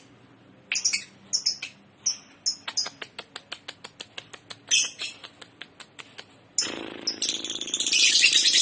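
Lovebird calling in full voice. Sharp, high chirps in the first few seconds give way to a run of quick clicks at about five a second, then to dense, continuous shrill chattering from about two-thirds of the way in.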